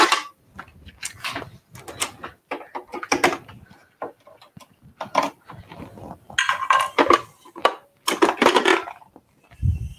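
Kitchen clatter: dishes and utensils clinking and knocking in a run of short, separate bursts, with a low thump near the end.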